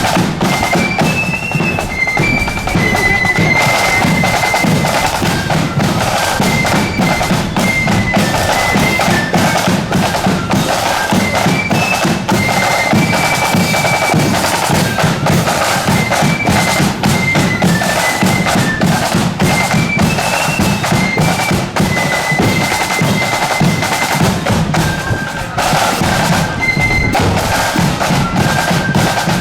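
Marching band playing a tune: a high, shrill melody line over a steady beat of snare and bass drums.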